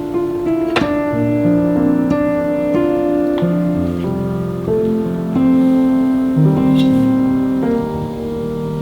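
Background music: a gentle piano-led instrumental melody with sustained chords.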